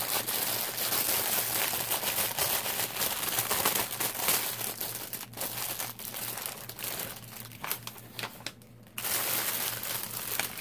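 Crinkling and rustling of a diamond painting kit's packaging and paper being handled as the inventory sheet is pulled out, with a brief lull near the end.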